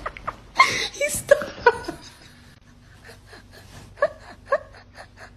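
A person's breathy laughter and gasps in short bursts, several in the first two seconds and two more about four seconds in.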